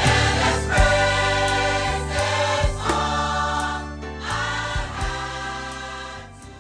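Church gospel choir singing an original song with instrumental accompaniment, fading out near the end as the song closes.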